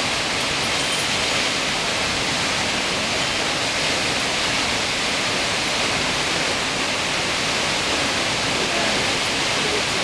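Kegon Falls, a tall waterfall, giving a steady, even rush of falling water.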